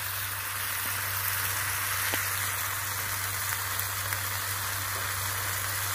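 Onions and green capsicum sizzling steadily in soy and tomato sauce in a frying pan, with a steady low hum underneath.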